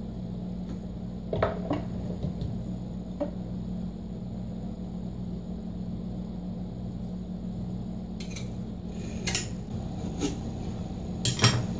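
A knife and chisel working a notch in pine: a handful of scattered clicks and taps of steel on wood, the sharpest just before the end, over a steady low hum.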